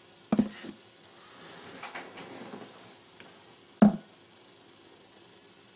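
Handling noises as a rod section and fishing line are worked by hand: a quick double knock just after the start, soft rustling through the middle, and one sharp knock, the loudest, near four seconds.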